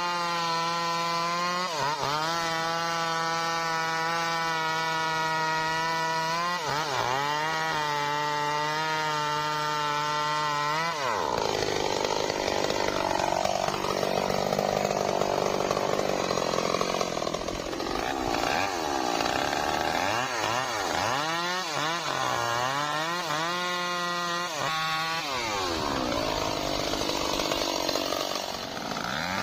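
Stihl MS 382 two-stroke chainsaw running at high revs with a steady tone, dipping briefly twice. After about a third of the way through the sound turns rougher and the engine pitch drops and recovers over and over, as the chain cuts into the wood under load.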